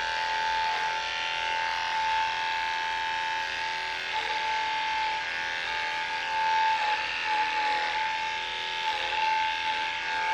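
Electric dog-grooming clippers running with a steady hum while trimming a wire-haired Jack Russell terrier's coat.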